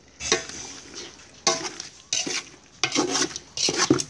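Metal tongs scraping and clinking against an aluminium pot while stirring and turning pieces of braised pork stomach in thick sauce, in about five short bursts.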